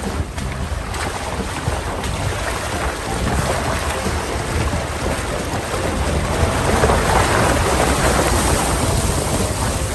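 Stream water splashing and rushing against the front wheel and side of a SsangYong Rexton Sports pickup as it fords a shallow, rocky creek, over a low rumble. The splashing grows louder from about six seconds in.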